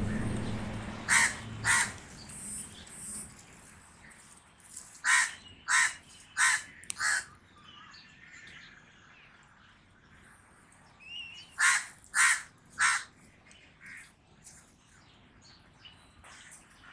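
Common raven calling: short harsh caws in clusters, two about a second in, a run of four a few seconds later, then three more, with fainter calls in between.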